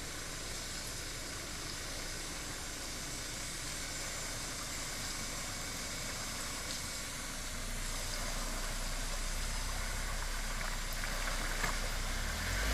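Jeep engine running at low speed, heard from outside the vehicle over a steady hiss, getting louder over the last few seconds as it works through the trail section.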